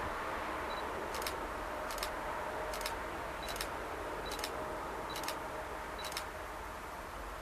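Camera taking a series of photos: a short high focus-confirmation beep before most shots, then a sharp shutter click, seven clicks about one every 0.8 s, over a low steady rumble.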